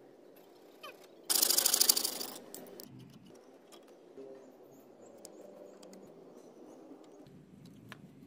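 Thread-seal (PTFE) tape pulled off its roll in one fast, loud rasping rip about a second in, lasting about a second, followed by faint clicks of hands handling plastic pipe fittings.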